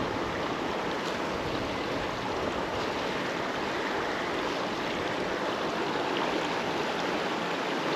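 Small trout creek flowing: a steady rush of running water.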